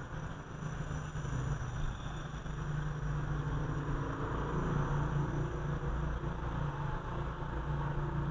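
Steady low rumble and hum of a running motor, with faint steady high tones above it.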